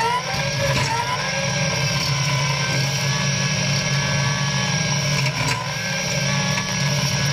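Caterpillar 297C compact track loader's diesel engine running steadily while powering a front-mounted hydraulic bush hog pushing into brush. Its pitch wavers briefly at the start.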